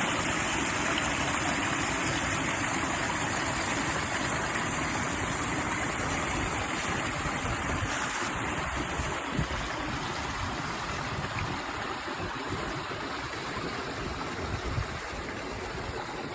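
Stream water flowing steadily, an even rushing sound that eases slightly toward the end.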